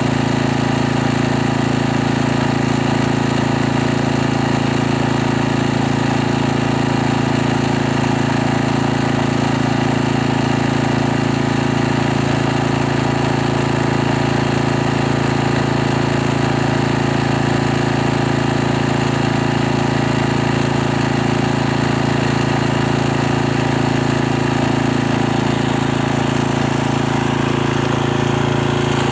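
Small portable engine-driven generator running at a steady, unchanging speed close by, with a constant low hum.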